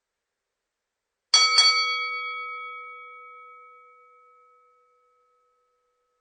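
Boxing ring bell struck twice in quick succession, a double ding, then ringing out and fading over about three seconds.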